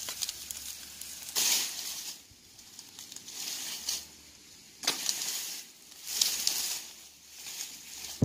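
Dry branches and twigs rustling and crackling as they are dragged and handled over dry leaf litter, in four or five short bursts with quieter gaps between.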